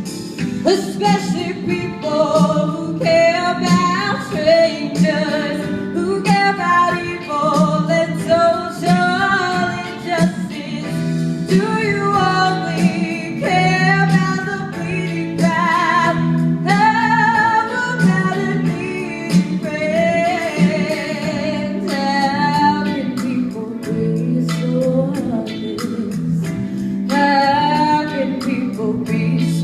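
Live singing with band backing in a 1960s pop revue: sung melody lines over sustained bass notes and a steady beat.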